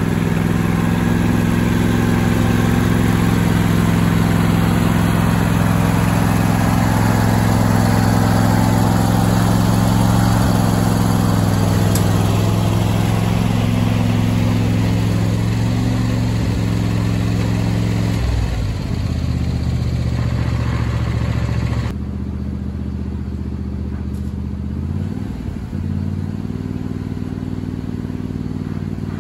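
Lawn tractor engine running steadily. Its note drops lower about two-thirds of the way through, then picks up again near the end.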